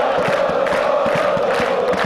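A large crowd of football supporters chanting in unison, many voices holding a sung note together.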